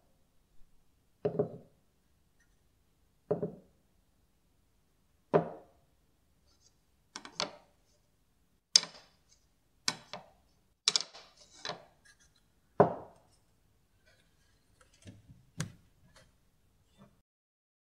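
Pieces of wood set down one at a time on a hard surface: a series of short wooden knocks every second or two, some coming in quick pairs.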